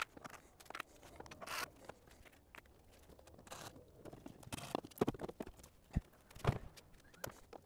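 Scattered clicks, scrapes and rustling of hand work in an engine bay as a metal intake pipe with a silicone coupler is worked loose and lifted out, with two dull knocks a little past halfway.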